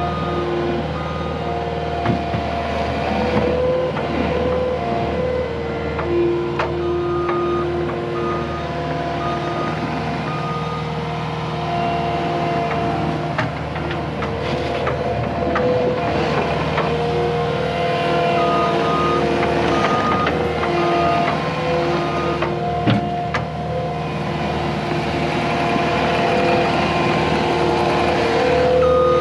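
Skid steer loader running steadily, its engine and drive hum rising and falling as it manoeuvres. Its reverse alarm beeps in several spells as it backs up, with a few sharp knocks along the way.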